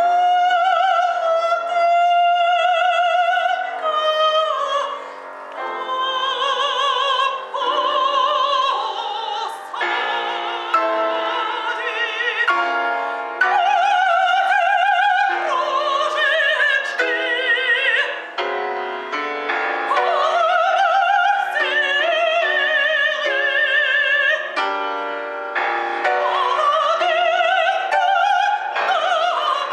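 Classical soprano singing long held notes with a wide vibrato, accompanied by a grand piano.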